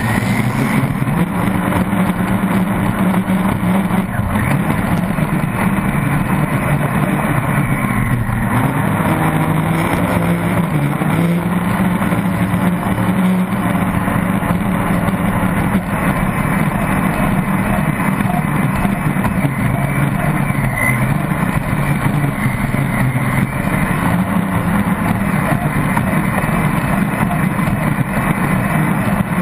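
Pro Stock racing boat's engine running hard at speed, heard from on board, with rushing wind and water; its pitch holds fairly steady, shifting slightly around ten seconds in.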